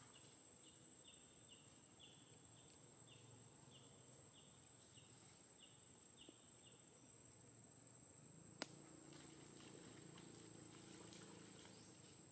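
Near silence: faint outdoor insect ambience with a steady high whine, a run of short chirps about twice a second through the first half, and a single sharp click about eight and a half seconds in.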